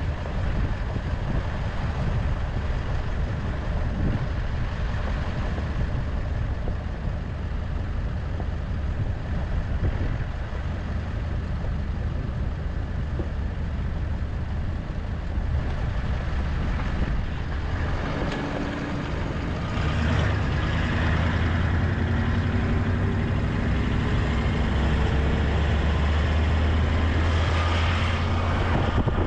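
A vehicle engine running steadily as the vehicle drives. It gets louder and fuller about two-thirds of the way through, with a slowly rising pitch near the end.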